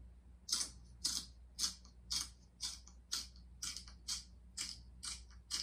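Manual pencil sharpener shaving a pencil: a run of short crunching strokes, about two a second.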